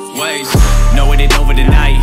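Loud music whose heavy bass and drum hits come in about half a second in.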